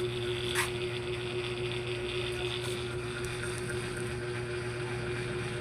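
Steady motor hum with a constant tone and a low drone underneath, a few faint clicks over it.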